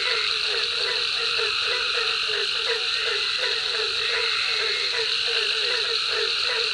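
Night chorus of pond frogs: short croaking calls repeat about three times a second over a steady high-pitched drone.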